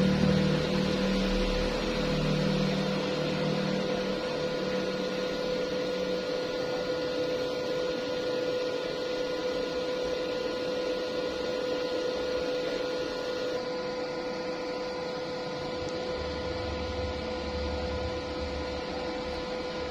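A steady electrical hum with a constant tone over an even hiss, with a low buzz in the first few seconds and again near the end.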